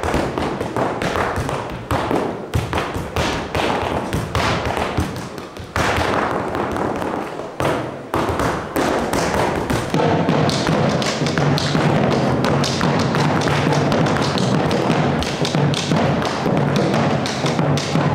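Malambo performance: a dancer's rapid foot stamping on a stage floor together with bombo drums beaten with sticks, a dense run of taps and thumps that grows steadier and more continuous about halfway through.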